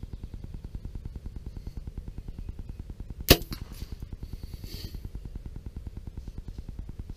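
A single sharp crack of a Mathews compound bow being shot, about three seconds in, followed about a second later by a brief high rushing noise.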